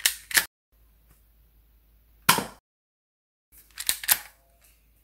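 Monica Vektor CP1 spring-powered airsoft pistol being shot with BBs: sharp plastic clacks of its spring mechanism, two right at the start, one about two seconds in, and a quick run of three near the end.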